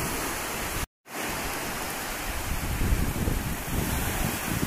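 Small surf breaking and washing up a sandy beach, with gusty wind rumble on the microphone. The sound drops out completely for a moment about a second in, then carries on.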